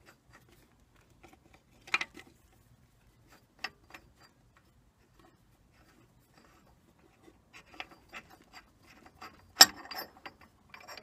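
Small metallic clicks and rattles as the Record CL4 lathe's loosened spindle locking ring and pulley are turned by hand. Sharp metal knocks come about two seconds in and again a little later, with a run of clicks and the loudest knock near the end.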